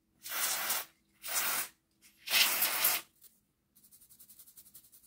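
Three short blasts from an aerosol can of WD-40 contact cleaner sprayed through its straw to flush fluff and gunk out of small gear parts. Then, near the end, a toothbrush scrubs a part with quick, faint strokes.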